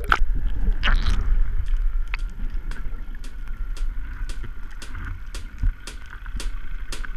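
Sea water sloshing and gurgling around a GoPro in its waterproof housing, at the surface and then underwater: a muffled low rumble with a scatter of sharp clicks.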